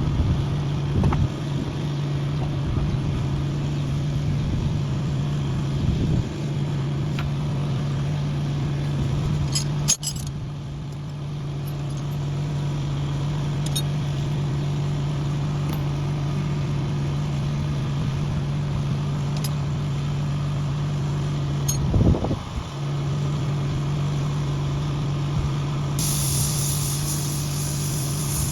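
An engine running steadily at an unchanging speed, with a few knocks or clanks over it.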